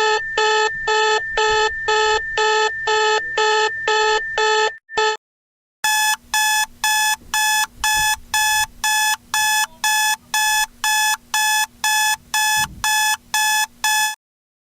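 Electronic alarm tone beeping in a fast, even rhythm: a lower-pitched run of beeps for about five seconds, a short break, then a higher-pitched run of about two beeps a second that stops abruptly.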